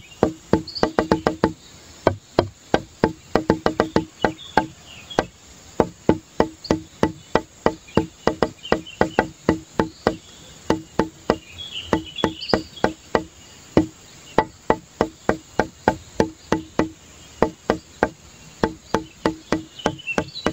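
Background music made of quick runs of sharp wood-block-like clicks, each with a short low note, in a steady repeating pattern, with scattered high chirping sounds.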